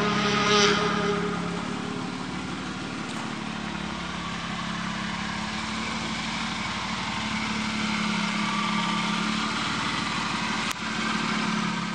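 BMW E36 sedan's engine idling steadily, a little louder in the last few seconds.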